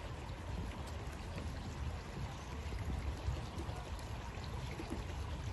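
Steady rushing of running water, with a low rumble underneath.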